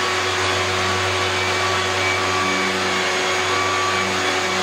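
Ridgid orbital sander running on a drywall joint, with a vacuum drawing the dust off through a hose attached to the sander: a steady whirring hum with hiss.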